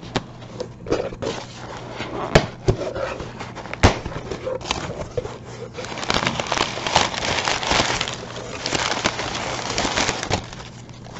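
A taped cardboard shipping box being worked open by hand, with sharp snaps and scrapes. About halfway through, crumpled packing paper starts rustling and crinkling steadily as hands dig through it, easing off near the end.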